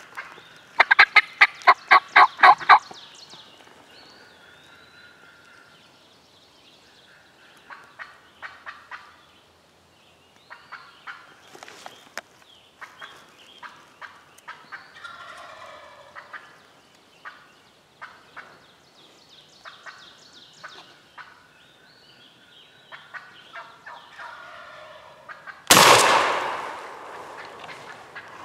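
A wild turkey gobbler gobbling, a rapid rattling string of notes lasting about two seconds near the start, followed by faint bird chirps and scattered soft ticks. About 26 seconds in a single shotgun shot goes off, the loudest sound, its echo dying away over a couple of seconds.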